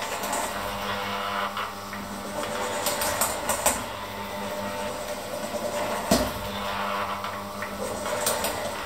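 Electric hand mixer running steadily, its beaters working a thick mixture in a stainless steel bowl. A few sharp clicks of the beaters striking the bowl come about three seconds in, and a louder one around six seconds.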